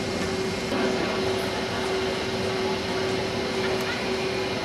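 Steady hum and rumble of a train station hall as passenger trains move slowly along the platforms, with one constant droning tone throughout.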